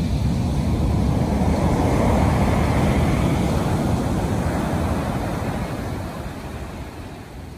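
Heavy surf from a hurricane swell: a large wave breaking with a steady roar, its whitewater rushing up the beach. The roar fades away over the last couple of seconds as the wash spreads out and slows.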